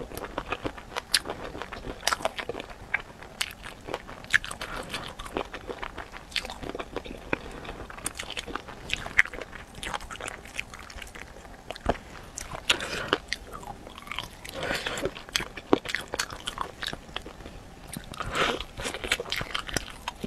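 Close-up mouth sounds of eating spicy chicken feet: biting, chewing and gnawing at skin and cartilage, with irregular wet crunches and sharp clicks all through and a few longer, noisier chewing spells.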